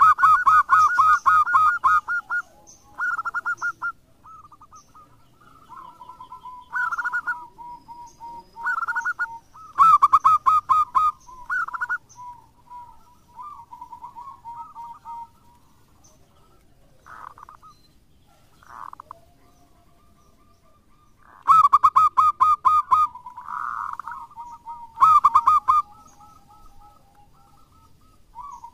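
Zebra dove (perkutut) cooing in full song: repeated bursts of its fast, rolling staccato coo, several loud phrases with softer, lower trills in between and a mostly quiet gap in the middle.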